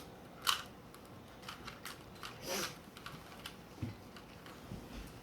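Rubik's cube being turned by hand: an irregular run of light plastic clicks and clacks as its layers are twisted.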